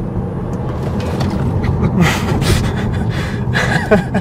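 Low road and tyre rumble inside the cabin of a Tesla Model 3 Performance pulling hard, with a sharp gasp about two seconds in and laughter near the end.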